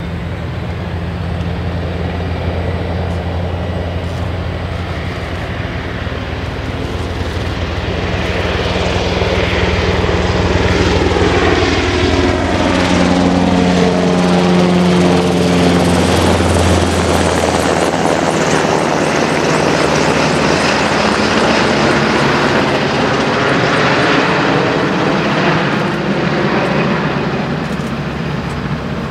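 UH-60JA Black Hawk helicopter flying overhead, its twin turboshaft engines and rotor blades chopping. The sound grows louder as it approaches, and its pitch falls as it passes over about halfway through, then it recedes.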